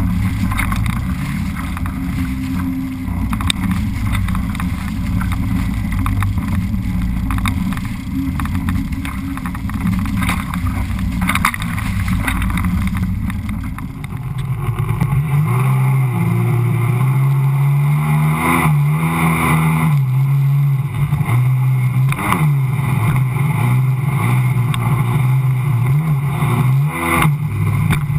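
Sea-Doo personal watercraft engine running at speed, with water and wind noise on the camera. About halfway through, the engine note becomes louder and clearer, rising and falling in pitch as the throttle changes.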